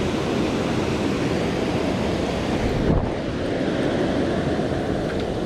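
Steady rush of flowing river water, with a brief low thump about three seconds in.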